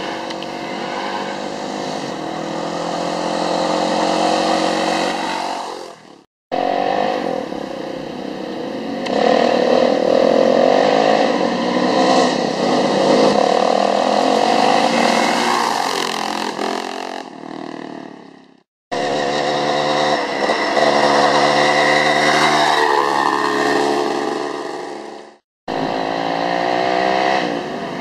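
Vintage pre-1985 enduro motorcycles riding along a dirt road toward and past the camera, their engine notes rising and falling. The sound comes as four separate passes, each cut off abruptly.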